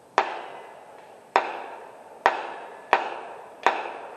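Five gunshots from other shooters on the range, fired at uneven intervals over about three and a half seconds, each sharp crack trailing off in a long echo.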